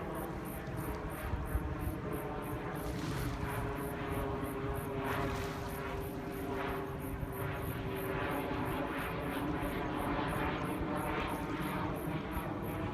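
Small propeller plane's engine droning steadily as it passes. Insects chirp in an even, rapid pulse high above it.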